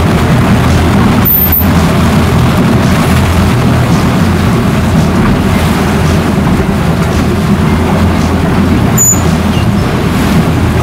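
Motorboat engine running steadily under way, a low, even drone with a rushing of wind and water over it.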